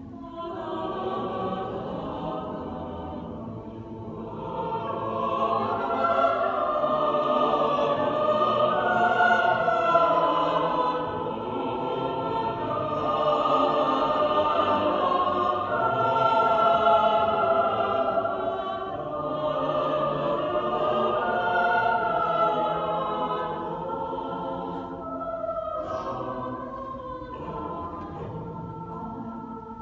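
Mixed choir of men's and women's voices singing together. It swells louder about five seconds in, is loudest through the middle, and grows softer near the end.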